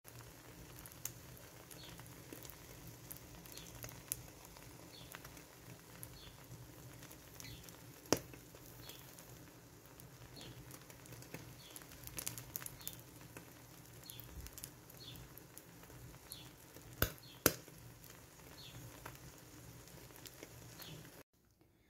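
Egg omelette with green chili frying in oil in a pan, a faint steady sizzle and crackle with scattered sharp pops of spitting oil, the loudest a little after eight seconds and twice around seventeen seconds.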